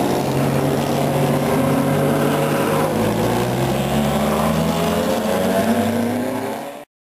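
Race car engine running with a steady pitch that dips about halfway through and then climbs again as it revs. The sound cuts off suddenly near the end.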